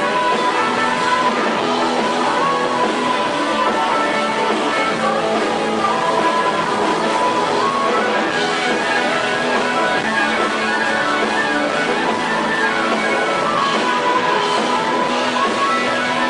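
Live blues-rock band playing: two harmonicas played through microphones over electric guitar, with long held and bending notes.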